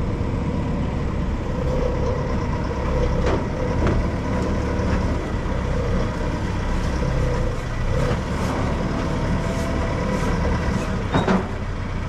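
Diesel engine of a telehandler running close by, a steady rumble with a wavering whine over it. A few sharp knocks come near the end.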